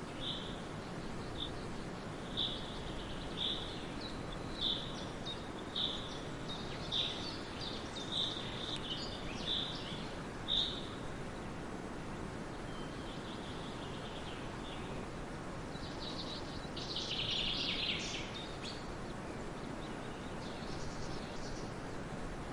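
A bird calling over steady background noise: about ten short, high notes roughly once a second, then a louder burst of chirping later on and a few fainter chirps near the end.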